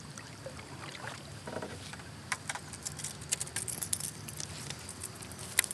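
Quiet kayak noises: soft paddle and water sounds, then from about halfway through a quick irregular run of small clicks and taps as a fishing rod and reel are handled, with one sharper tap near the end.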